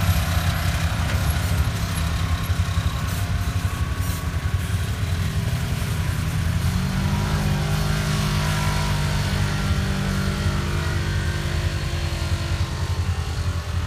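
Side-by-side UTV engines: one close by idling with a steady low drone, while another climbs a steep rock slope, its engine note rising about seven seconds in and then holding under load.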